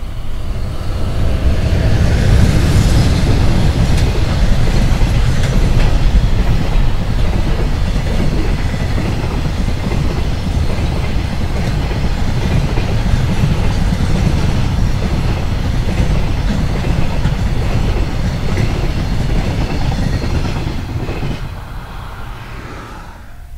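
JR Freight container train passing close by behind an EH500 electric locomotive, a steady heavy rumble of wheels on rail from the long string of container flat wagons. It swells to its loudest in the first few seconds as the head of the train comes by, then fades away near the end as the last wagons pass.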